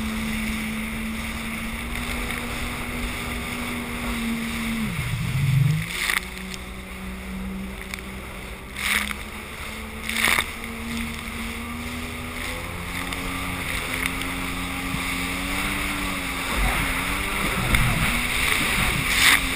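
Sea-Doo personal watercraft engine running steadily, its pitch dropping sharply about five seconds in and then picking up again, over wind and water noise. The hull slaps through choppy water, with several sharp splashes of spray.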